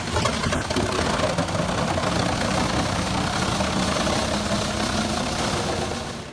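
Industrial wood chipper running, its engine at a steady speed under a dense, rough churning noise; the sound fades out near the end.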